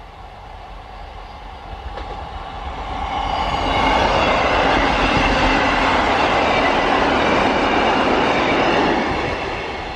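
Multi-coach passenger multiple-unit train approaching and passing close by at speed. Its wheel and engine noise swells to a loud steady rush and begins to fade near the end.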